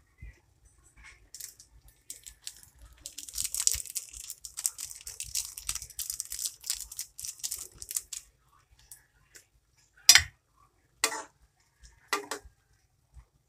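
Dried bay leaves crinkling for several seconds as they are crumbled by hand into the pot, then a metal ladle knocks against the metal cooking pot three times.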